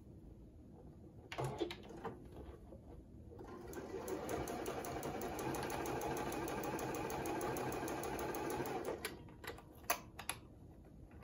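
Juki sewing machine stitching a seam at a steady speed for about five seconds, a rapid, even run of needle strokes that starts a few seconds in and stops near the end. A few light clicks from handling come before and after it.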